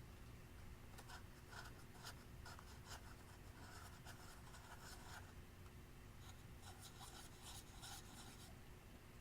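Clear slime being squished and worked by hand: faint sticky clicks and crackles in two runs, with a pause of about a second between them.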